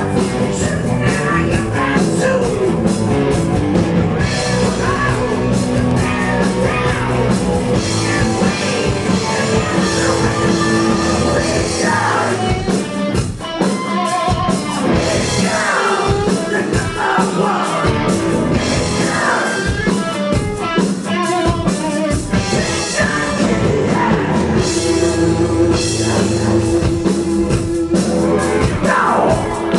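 Live hard rock band playing loudly: electric guitars, bass and drum kit, with a male singer's voice.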